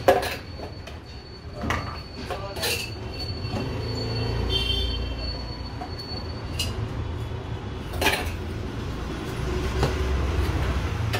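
A steady low rumble with a knife clinking now and then against bowls and jars while bread is spread, the sharpest clink right at the start and another about eight seconds in.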